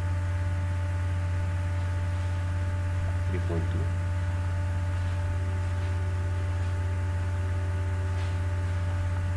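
Steady low electrical hum, mains hum picked up by the recording, with a faint higher whine joining it about five seconds in.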